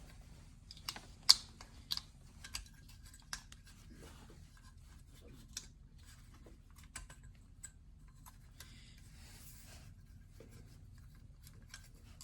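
Small metal carburetor parts and a hand tool clicking and tapping as they are worked loose during disassembly. A handful of sharp clicks come in the first few seconds, the loudest about a second in, then sparse faint ticks and a soft scrape, over a low steady hum.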